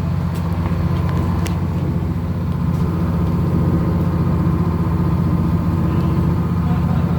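Fishing boat's engine running with a steady low hum as the boat gets underway out of the harbour.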